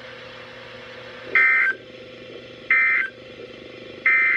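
Emergency Alert System end-of-message data bursts on a NOAA Weather Radio broadcast: three short, shrill digital bursts about 1.4 s apart, marking the end of the warning. A faint steady radio hum runs underneath.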